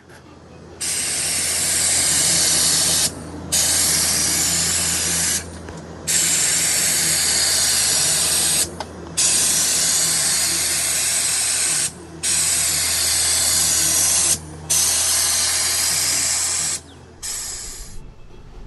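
Compressed air hissing from a nozzle in seven bursts of about two to three seconds each, the last one short, over a steady low hum that stops near the end.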